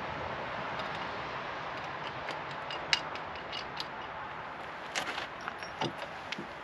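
Scattered light clicks and clinks of wrenches and mounting hardware being handled at a boat's transom, the sharpest about three seconds in, over a steady background hiss.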